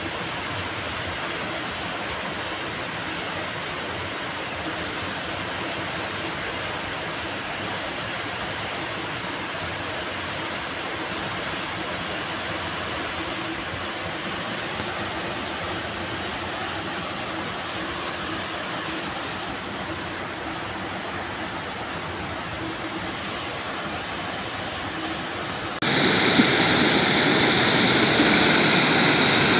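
Muddy floodwater rushing over a low spillway and through rapids in a swollen river, a steady rush of water. It turns suddenly louder near the end.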